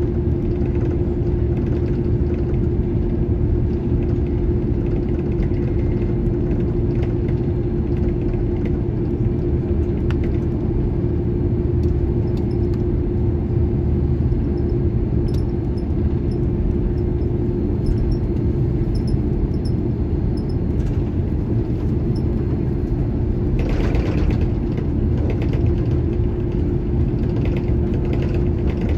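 Airbus A330-300 heard from inside the cabin while taxiing: the jet engines give a steady low rumble with a constant droning tone, and the wheels rumble over the taxiway. A brief rush of noise comes and goes about 24 seconds in.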